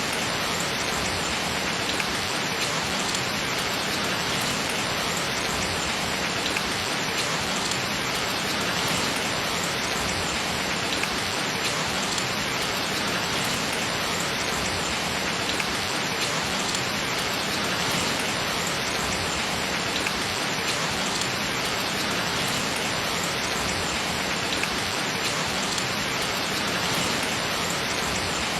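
Gentle, steady rain falling: an even hiss of rain with a faint patter of individual drops.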